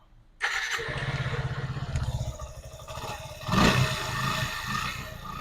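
Suzuki Gixxer 150 single-cylinder motorcycle engine starting about half a second in and running, with a brief rev about three and a half seconds in. It runs on a freshly fitted camshaft and rocker arms, and the mechanic finds the valve head noise gone.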